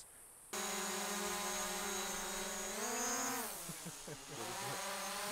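Quadcopter drone's motors and propellers whining steadily, cutting in suddenly about half a second in. About three seconds in the pitch rises briefly, then the tones waver and dip.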